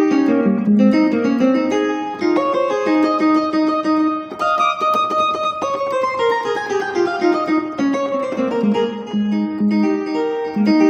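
Yamaha PSR-E473 keyboard played with a plucked, guitar-like lead voice: a fast melodic line of quick notes, with a long descending run about six seconds in.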